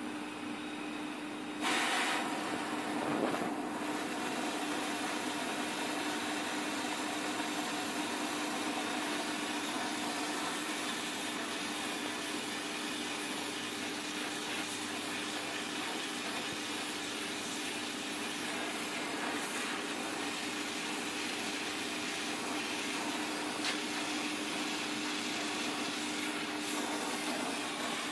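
Gas torch flame hissing steadily as it heats a connecting rod's small end, expanding it so the piston pin can be pressed in. The hiss grows louder about two seconds in, then holds steady.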